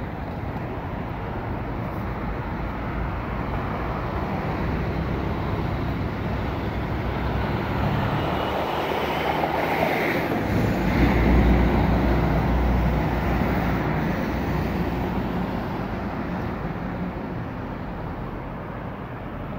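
City street traffic noise that builds to a deep engine rumble about halfway through, then fades, like a heavy vehicle passing close.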